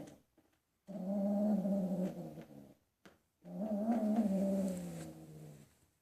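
Bengal cat yowling during mating: two long, drawn-out calls of about two seconds each, the second wavering in pitch, after the end of an earlier one.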